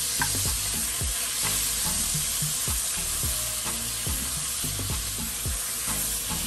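Seasoned pork rib pieces frying in a hot cast iron pot, a steady sizzle.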